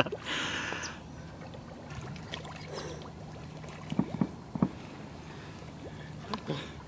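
A person wading through shallow marsh water and reeds: sloshing steps, with a few sharper splashes about four seconds in and again near the end.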